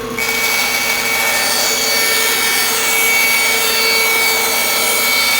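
Laguna bandsaw cutting through a piece of wood: a steady, even cutting noise with a thin high whine over the running motor's hum. The cutting noise stops suddenly near the end as the blade clears the wood, leaving the motor running.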